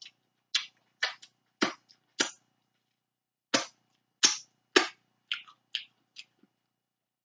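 Close-miked mouth sounds of snow crab meat being sucked and slurped out of the shell: a string of about nine short, sharp slurps with brief pauses, mostly in the first six seconds.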